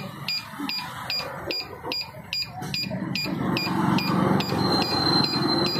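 Electronic buzzer of a homemade earthquake-detector alarm beeping, short high two-tone beeps about twice a second; about four and a half seconds in a steady high tone joins them. The alarm sounds because the pendulum wire, set swinging by shaking the stand, touches the ring and closes the circuit.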